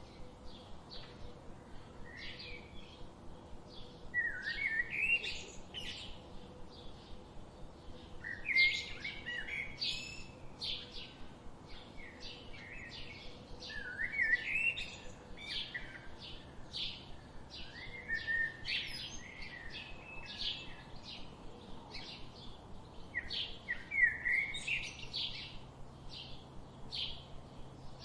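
Songbirds singing: a steady run of short, high chirps several times a second, broken every few seconds by a louder warbling phrase of quick rising and falling notes.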